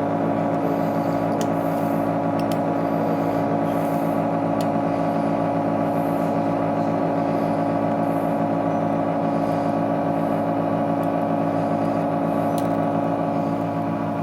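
Steady electric hum of the heated vacuum separator machine's pump running, with a few faint light ticks over it.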